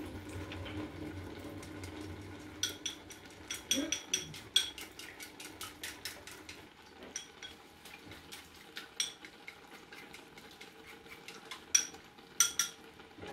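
Chopsticks beating eggs in a small ceramic bowl: irregular clicks of the sticks against the bowl, each with a short ring, coming in clusters from a few seconds in.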